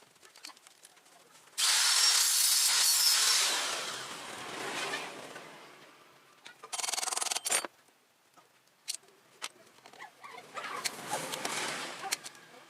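A workshop power tool running in three bursts of loud hissing, scraping noise. The first starts suddenly and fades away over a few seconds, a short sharp burst follows about five seconds later, and a fainter one comes near the end, with scattered clicks between.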